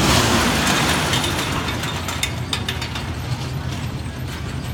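Steel roller coaster train running along its track: a rushing rumble, loudest in the first second and then fading, with a clatter of rattling clicks about two to three seconds in.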